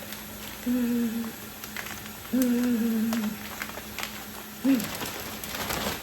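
A person humming a few short notes, the last one brief and falling, over scattered light clicks and rustles.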